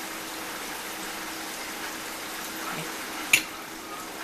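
Steady background hiss with a faint low hum, broken by one sharp clink of a utensil a little over three seconds in.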